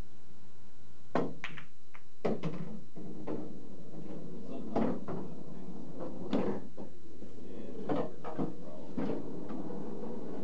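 Pool balls clacking: a cue strike about a second in, then a scattered series of sharp knocks and clunks over the next several seconds as balls hit each other and the cushions.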